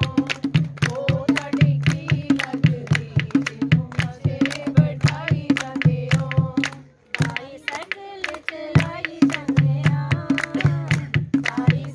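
Women singing a Punjabi folk tappa to a dholak beaten by hand in a fast, steady rhythm, with hand claps. About seven seconds in the drum stops for under two seconds while a voice carries on, then the beat resumes.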